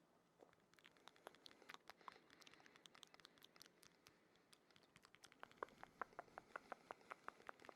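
Faint, close-miked ASMR clicks and taps: scattered small wet clicks, then a quicker run of about six a second in the second half.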